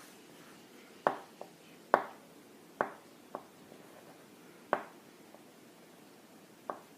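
A pencil knocking against a hard surface: about six sharp, irregularly spaced taps, several followed by a lighter second tap.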